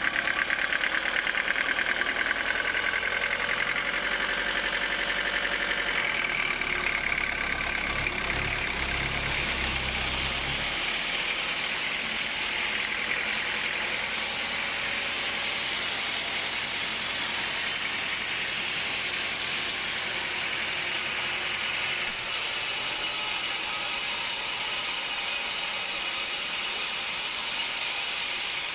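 Sawmill machinery running: an engine-like hum with a low rumble for the first ten seconds or so, then a steady rushing noise.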